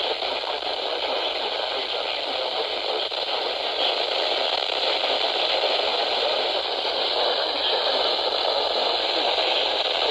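Steady radio static from a weather radio receiver: an even hiss with no clear voice, the sound of a weak or poorly tuned signal.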